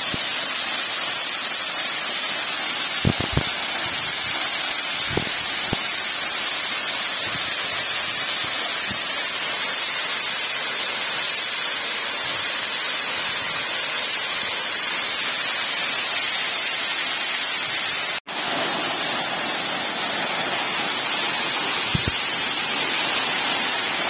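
Waterfall pouring and splashing onto rocks at close range, a steady rushing hiss, with a few faint knocks in the first several seconds and a brief cut in the sound about eighteen seconds in.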